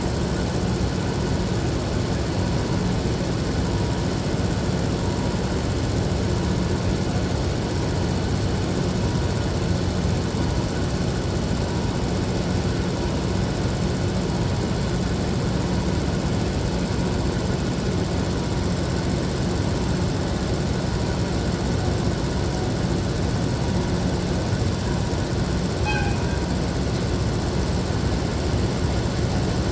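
Steady low rumble of an idling railway diesel engine, heard from a standing train. A brief high chirp sounds near the end.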